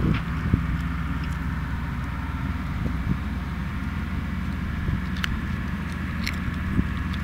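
An engine running steadily off-screen, a low even hum, with a few short sharp clicks about five and six seconds in.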